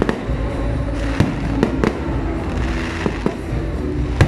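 Aerial fireworks shells bursting overhead: a run of sharp bangs, about seven in a little over four seconds, with a steady low rumble between them.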